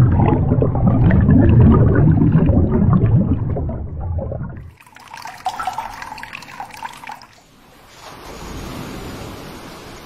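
Glacial meltwater rushing and gurgling in a narrow ice channel as a metal mug is dipped in and filled. About five seconds in it drops to lighter trickling and splashing, and near the end gives way to a fainter steady wash like waves.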